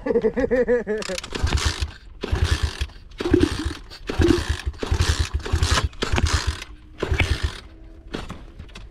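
Pit bike engine revved in short, repeated bursts, about one or two a second, each with a rough, rapid pulsing.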